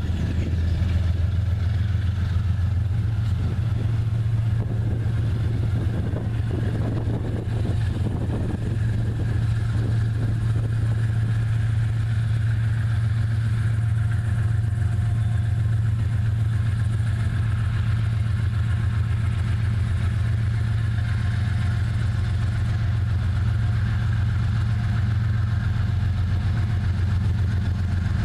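Diesel engine of a GE ES44AC locomotive (a GEVO-12 V12) running steadily under power, a deep, even drone that holds without change.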